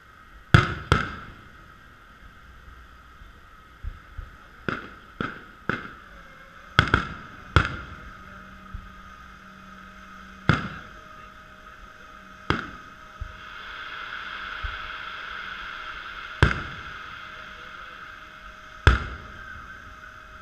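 Aerial fireworks shells bursting with a dozen or so sharp booms, irregularly spaced, some in quick pairs and runs, each with a short echoing tail. A steady hiss sits underneath and grows louder for a few seconds past the middle.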